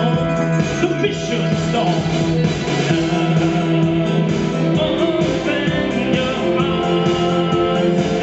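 Rock band playing an instrumental passage with guitar, steady and loud throughout.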